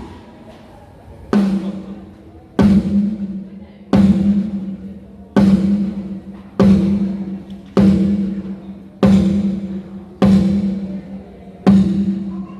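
One drum of a drum kit, a tom with a ringing low pitch, struck alone nine times at an even pace, about once every second and a third, each hit ringing out and dying away: a drummer sounding a single drum over and over for a sound check.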